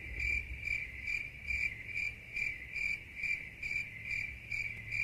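Cricket chirping in an even rhythm, about three chirps a second.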